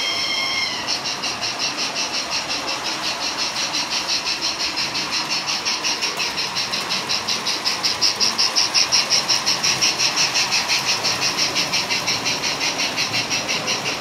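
MERKUR electronic steam sound module in a JEP 141P tinplate model steam locomotive: a whistle ends about a second in, then a steady fast chuffing of about five beats a second, louder in the middle as the engine comes close, over the rumble of the train on the track.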